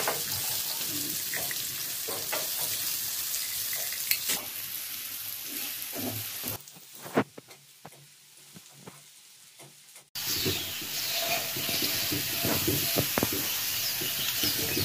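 Sliced banana pieces sizzling as they fry in a non-stick pan, with a wooden spatula scraping and tapping against the pan as they are stirred. About halfway through, the sizzle drops to faint for a few seconds, then comes back suddenly.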